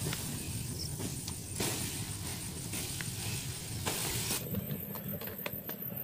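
Water poured from a bowl onto the embers of a campfire, hissing in short bursts as it hits the hot ash. After about four seconds the hissing stops, leaving a quieter background with a few faint ticks.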